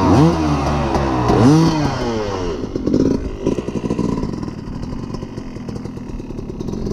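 Dirt bike engine revving hard as the bike pulls away, several quick rising and falling revs over the first couple of seconds. The engine then drops to a fainter, steadier running sound as the bike gets farther off.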